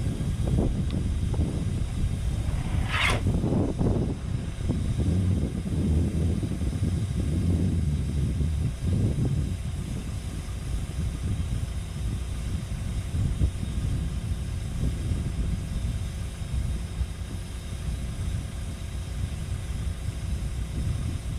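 A Cat 314E excavator's diesel engine runs under load while its ripper tooth works through hard volcanic bedrock, with heavier, uneven rumbling in the first nine seconds and steadier running after. A short, high, falling screech comes about three seconds in.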